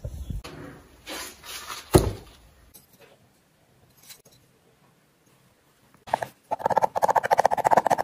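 Handling a tray of fine moulding sand: scraping and rubbing, a single sharp knock about two seconds in, a quiet stretch, then a fast rasping scrape of a flat plate over the sand near the end.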